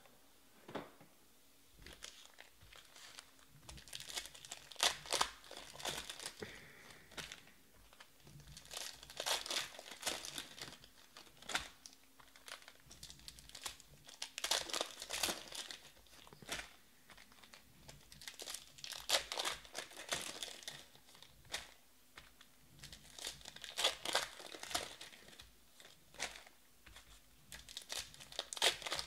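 Foil wrappers of Panini Prizm baseball card packs being torn open and crinkled by hand, in crackly bursts every few seconds.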